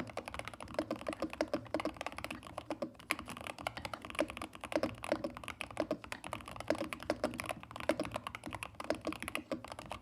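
Fast typing on a Keychron K4 HE mechanical keyboard, with Gateron double-rail Nebula magnetic linear switches in an aluminium case: a dense, irregular stream of key clacks.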